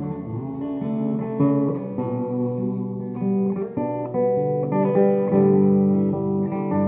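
Acoustic guitar playing an instrumental passage between sung lines of a folk song, with picked notes and chords ringing and changing every half second or so.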